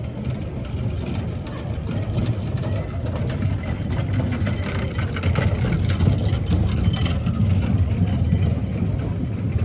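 Airport ambience dominated by a steady low mechanical rumble, like engines or machinery idling, with faint scattered clatter over it.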